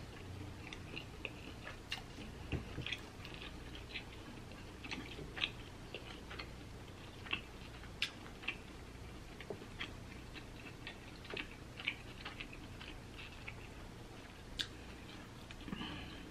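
A person chewing broiled lobster tail meat, with many short mouth clicks at an uneven pace.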